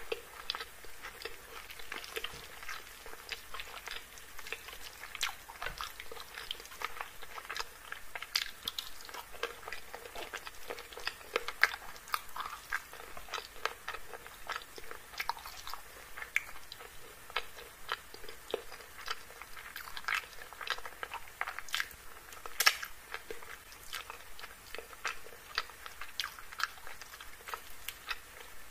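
Close-miked chewing of chicken curry and rice: steady, irregular wet mouth clicks and smacks, with the soft squelch of fingers tearing chicken and gathering saucy rice on the plate.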